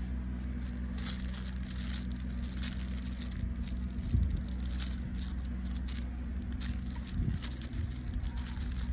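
Irregular crackling and crinkling as five-week-old puppies tug at and chew a green toy on grass strewn with dry leaves, over a steady low rumble.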